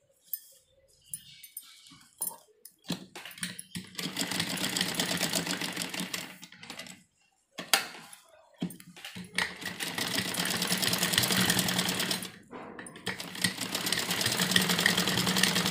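Domestic straight-stitch sewing machine stitching in runs of a few seconds, a rapid even clatter that starts about three seconds in. It stops briefly twice, as the needle is left in the fabric and the work is turned to follow the curved shape of the embroidered neckline. A few soft clicks from handling the fabric come before the first run.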